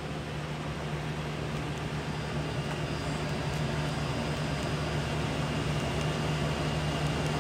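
Steady low machine hum over an even background noise, growing slightly louder, with a faint high whine joining about halfway through.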